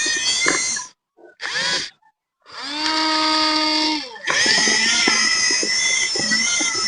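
Electric drive motors and gear trains of a radio-controlled bulldozer whining as it works, with a few small knocks. The whine stops and starts several times. About halfway in it rises in pitch, holds steady for over a second, then drops away.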